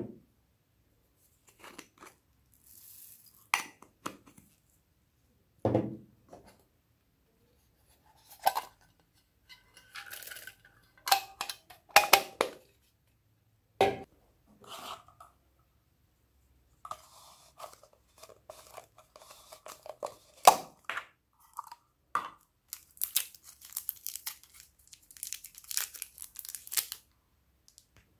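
Small slime decorations and foam beads being handled and dropped into a glass bowl of slime: scattered clicks, rattles and rustles, with a dense run of crackling and crinkling near the end.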